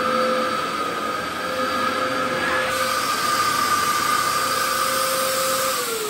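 Dyson DC07 upright vacuum cleaner, fitted with a 120-volt motor, running on carpet with a steady whine. Near the end the whine begins to fall as the motor winds down.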